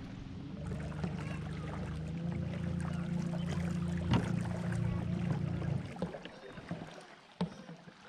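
Minn Kota electric trolling motor on an Old Town Sportsman 106 kayak running under power with a steady low hum, with a knock about four seconds in. The motor cuts off about six seconds in.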